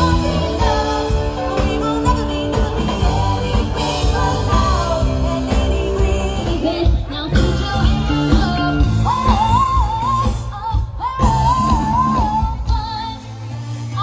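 A live rock band playing through a stage sound system, with drums, bass and guitar under a lead singer; the singer holds long wavering notes about nine seconds in.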